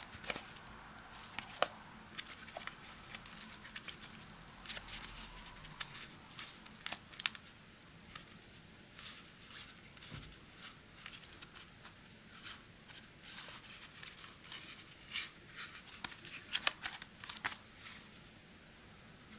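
Hands handling a slim bifold wallet with a carbon-fibre-textured finish, opening, flexing and folding it shut. The material gives many small irregular clicks, scrapes and rustles.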